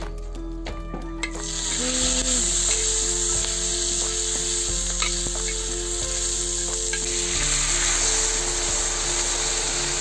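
Food sizzling in hot oil in a large wok, starting abruptly about a second in and then holding steady. A few faint knocks come from the metal spatula stirring the pan.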